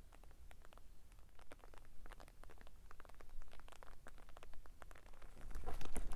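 Irregular soft ticks and taps, then footsteps crunching and rustling through dry grass on a desert trail from about five seconds in.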